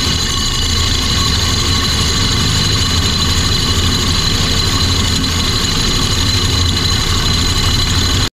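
A half-horsepower wood lathe spinning a 4x4 wood blank while a drill press drives a hole saw down into it, the saw cutting a groove to free a sphere: a steady motor hum under a constant cutting hiss and a high whine. The sound cuts off suddenly near the end.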